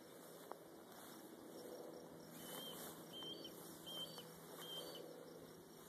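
A bird calling faintly, one short high chirp repeated four times about three-quarters of a second apart, over a quiet background hiss.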